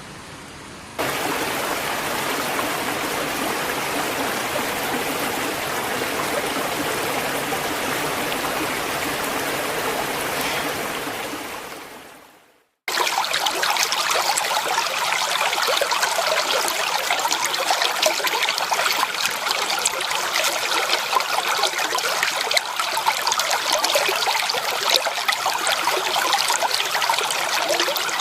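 Stream water flowing and trickling. A second or so in, one stream recording cuts in, then fades out into a brief silence about halfway through, and a brighter, more bubbly trickling stream takes over.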